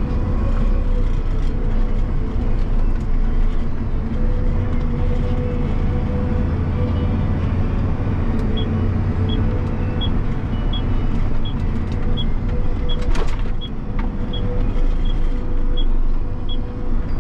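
Tractor diesel engine running steadily under load while driving, heard from inside the cab, with a steady transmission-like whine over the engine drone. From about halfway through, the turn indicator ticks regularly, about three ticks every two seconds.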